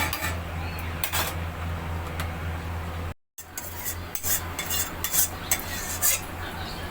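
Metal spoon stirring the finished chicken curry in a pan, with irregular scrapes and clinks against the metal over a steady low hum. The scrapes come closer together after a brief break about three seconds in.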